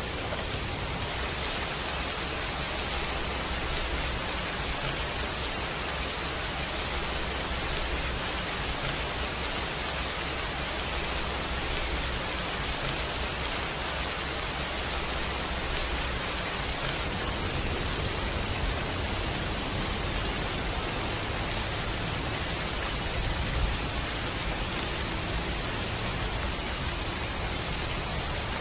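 A rain recording: steady rainfall as an even, continuous hiss with a low rumble underneath.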